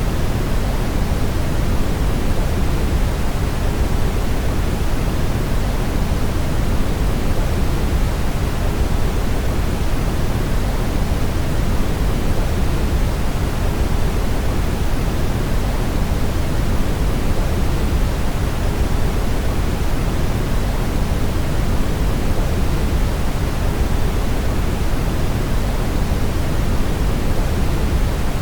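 Steady brown noise: an even, deep hiss, strongest in the low end and fading toward the top, without change.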